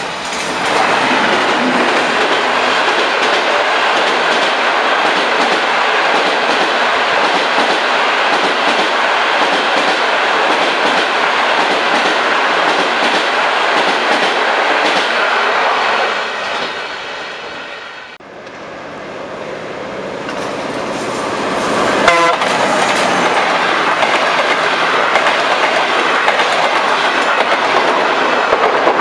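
Long-distance passenger train of blue-and-white coaches passing close at speed, a steady loud rumble and rattle of wheels and cars with clickety-clack over the rail joints. It fades away around 16 to 18 seconds in, then builds again as a second passing train comes close, with a sharp crack about 22 seconds in.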